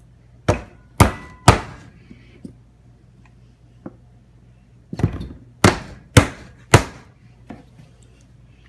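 A hand slapping a waffle on a plate: three sharp slaps about half a second apart, then after a pause four more at the same pace, with a few light knocks in between.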